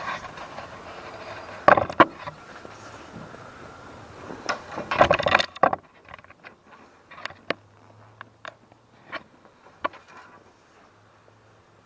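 Knocks and a rattling scrape from pull-starting a 1976 British Seagull Silver Century outboard, two sharp knocks about two seconds in and a longer rattling pull around five seconds in; the engine does not catch. Only faint clicks follow.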